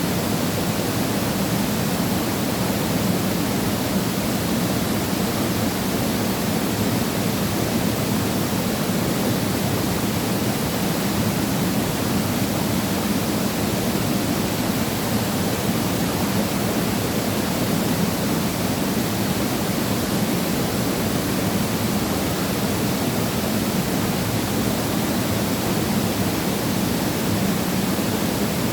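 Waterfall pouring steadily, a loud even rush of falling water.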